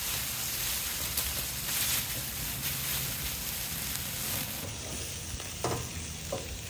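Paste-rubbed spatchcocked chicken sizzling as it sears on a grill grate over hot charcoal, a steady hiss. Two light clicks come near the end.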